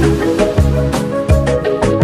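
Background music with a steady beat of low drum hits under melodic pitched notes.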